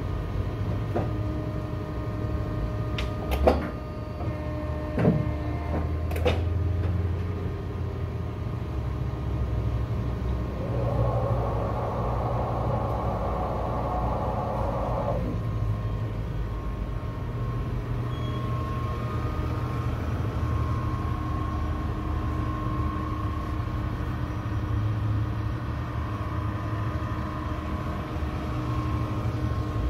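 Prism 137 guillotine paper cutter running with a steady low motor hum. Several sharp clunks come between about three and six seconds in, and a rushing noise rises for about four seconds around the middle.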